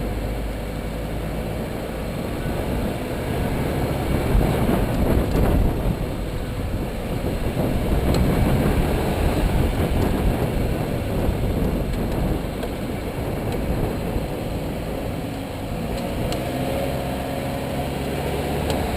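Car being driven: steady road and tyre rumble with engine hum.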